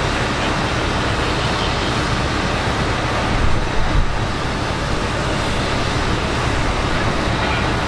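Fire truck diesel engines running steadily, a low rumble under a hiss, with a couple of brief louder bumps about three and a half to four seconds in.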